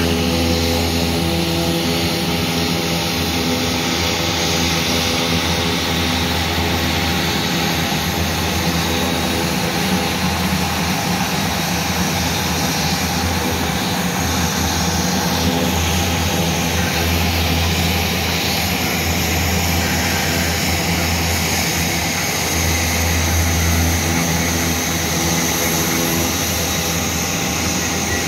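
Embraer A-29 Super Tucano turboprop engines running as the aircraft taxi nearby: a steady low propeller hum over a constant high turbine hiss. The hum swells and eases a few times.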